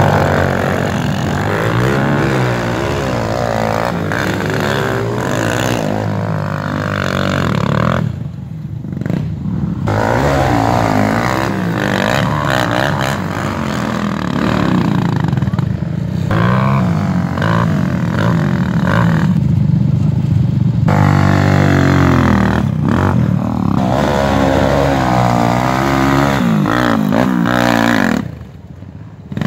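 Sport quad ATV engines, among them a Kawasaki 400, revving hard and falling away again over and over as the quads climb and slide on a sandy bank, with the pitch rising and dropping constantly. The engines ease off briefly three times: about eight seconds in, about twenty seconds in, and just before the end.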